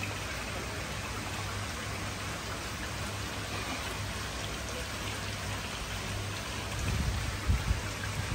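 Water pouring from a spillway outlet into a koi tank, a steady splashing over a low hum, with a few low bumps near the end.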